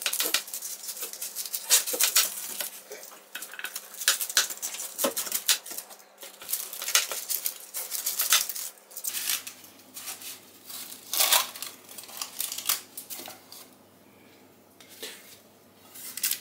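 Pizza-cutter wheel cutting through crisp puff pastry in a metal baking tray: irregular crunching of flaky crust with clicks and scrapes of the cutter against the pan. It goes quieter for a moment near the end.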